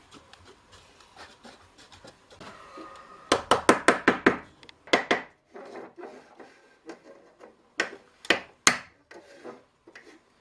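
Hammer striking a hoop driver to drive a metal hoop down over the oak staves of a small barrel: a quick run of about seven blows about three seconds in, then a few single blows later. Before the hammering, faint clicks of staves and hoop being handled.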